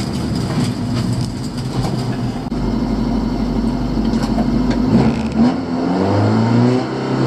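Honda Civic's 1.3-litre twin-carburettor engine heard from inside the cabin, running under way. About five to six seconds in the revs climb, then hold steady.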